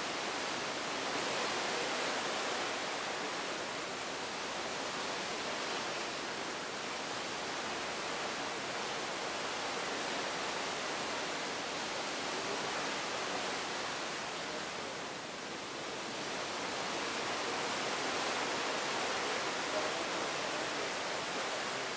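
Steady rushing hiss of sea water streaming past the hull of a cruise ship under way, swelling and easing gently, with a brief dip about fifteen seconds in.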